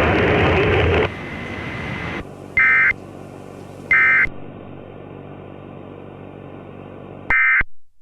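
Loud static that drops away about a second in, then a low hum under short, harsh two-tone data bursts: the Emergency Alert System's end-of-message tones, which close an alert. Two bursts come about a second apart, then a third near the end.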